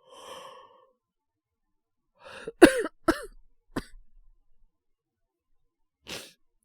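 Acted coughing from a character with a cold: a soft breath, then three short coughs in quick succession about two and a half seconds in, the first the loudest. A short sharp breath follows near the end.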